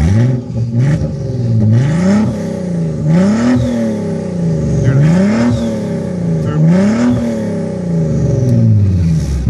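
Volkswagen Design Vision GTI concept's twin-turbo V6 revved repeatedly while stationary, heard at its twin exhaust tips. The revs rise and fall in about five blips, roughly one every second and a half.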